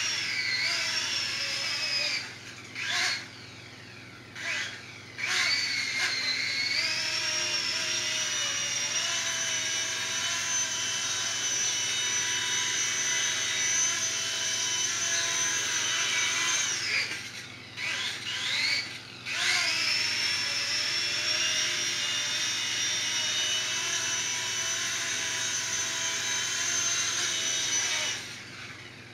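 Heliguy Atom FP 9958 model helicopter's electric motor and rotor giving a steady high-pitched whine. The whine is throttled down and spooled back up with a rising pitch several times: about two seconds in, again around four to six seconds, around seventeen to nineteen seconds, and near the end.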